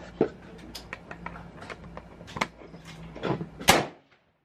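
Several rifle shots, sharp single cracks a second or more apart, the loudest just before four seconds in; then the sound cuts off abruptly.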